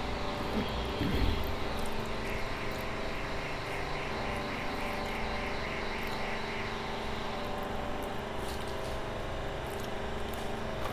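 A steady engine drone in the background, holding one pitch throughout with a stack of even tones. Faint clicks of eating are heard near the end.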